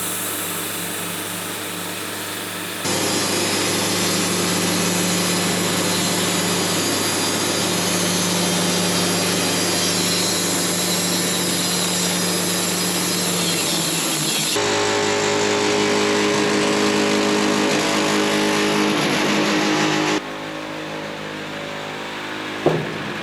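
Mobile Dimension sawmill running steadily at working speed while sawing a maple log, its engine tone holding level through several abruptly cut-together segments. A single sharp knock sounds near the end.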